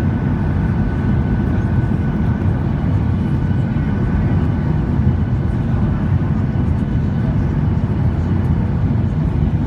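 Steady cabin noise inside a jet airliner descending to land: an even, low roar of engines and rushing air, with a faint steady whine above it.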